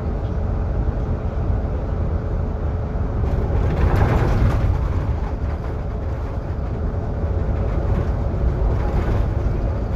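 Solaris Urbino 18 IV articulated bus in motion, heard from inside: a steady low running rumble with road noise, swelling louder for a second or so about four seconds in.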